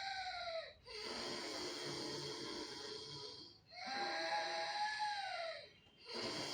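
A woman doing Ujjayi pranayama: slow, snore-like breaths in and out through a lightly contracted throat, each about two to three seconds long with short pauses between. Every other breath carries a whistling tone that falls at its end; the others are a plain rasping hiss.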